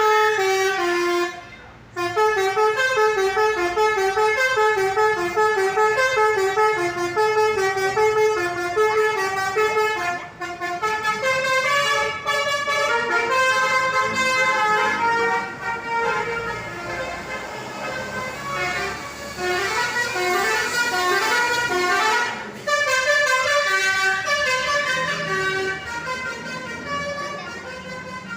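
Bus 'telolet' Basuri musical horn playing quick melodies of stepped notes. It breaks off briefly a few times and starts a new tune.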